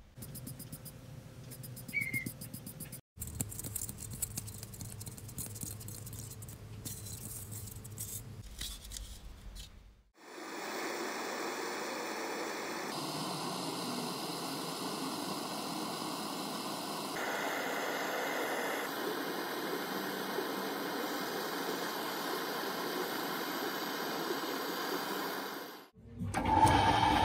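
A brush scrubbing a metal mesh speaker grille, then from about ten seconds in the steady hiss of a gas torch heating a small metal bracket clamped in a vise.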